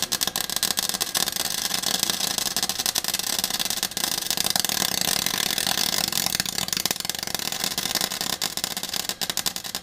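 MIG wire-feed welder crackling and sputtering without a break as steel sheet is welded into a car's floor pan. It is run without shielding gas, which gives a poor weld.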